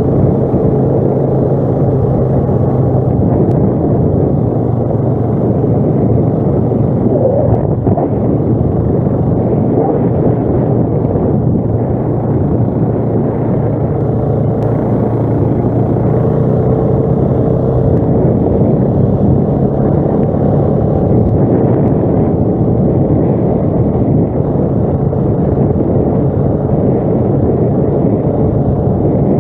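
ATV engine running steadily while riding, a loud continuous drone with a steady low engine note.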